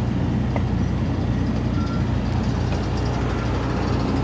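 An engine running steadily at constant speed: an even, low hum.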